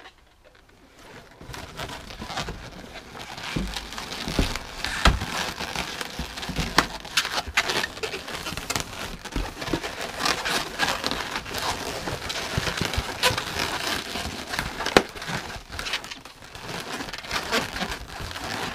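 Latex twisting balloons being handled, twisted and rubbed together, giving a busy run of rubbing noise with many scattered sharp clicks that starts about a second in.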